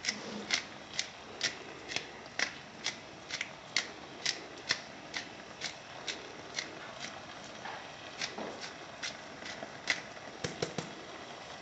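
Pepper mill being twisted to grind pepper, a crisp crunchy click about twice a second, fainter later and a few quicker clicks near the end.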